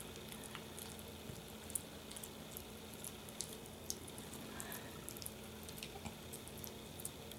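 Pomeranian puppy chewing on a small twig: faint, scattered little clicks and crackles over a steady low hum.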